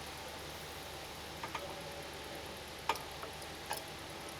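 A few light metal clicks as a brake pad fitted with an anti-squeal shim is pushed into place in the caliper bracket: a quick pair, then a sharper single click and one more, over a faint steady hum.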